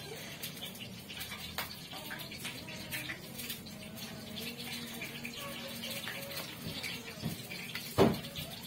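Cats chewing and smacking wet boiled fish from a metal pot: a steady run of small wet clicks and smacks. A single louder knock comes near the end.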